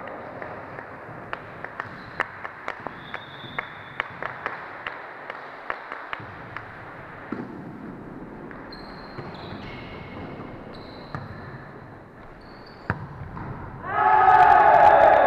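A volleyball bounced repeatedly on a sports-hall floor, sharp knocks about three a second, followed by a few short high squeaks and a single sharp hit of the ball. Voices shout loudly near the end.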